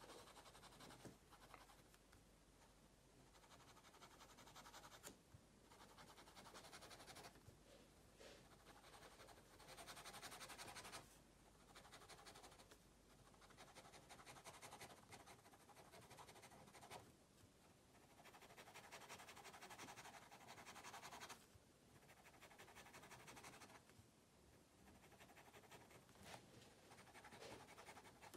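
Fineliner pen scratching faintly on sketchbook paper in quick hatching strokes. The strokes come in runs of a second or a few seconds with short pauses between them.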